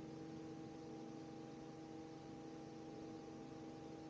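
Robinson R44 helicopter running on the ground just after landing, heard faintly through the headset intercom as a steady low hum with a few steady tones.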